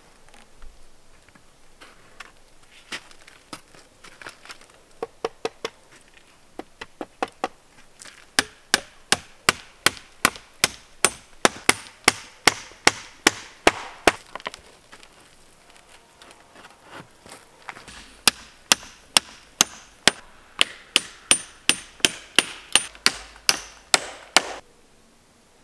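Hammering on a wooden pallet-board frame with the back of a hatchet: a few scattered knocks, then two long runs of quick, even blows at about three a second with a short pause between them.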